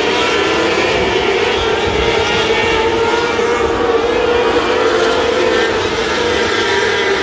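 A pack of 600cc wingless micro sprint cars running together on a dirt oval, their motorcycle-type engines blending into one steady, unbroken drone.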